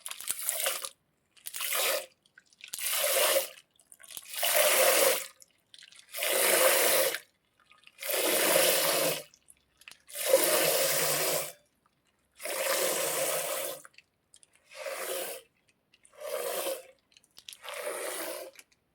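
Foley for hand-milking: about eleven separate squirts of liquid streaming into a container, each roughly a second long, the longest ones in the middle.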